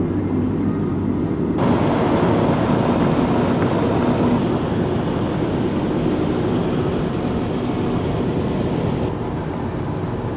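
Camper van driving on the road: steady engine and road noise heard from inside, with a louder rushing noise added from about a second and a half in until near the end.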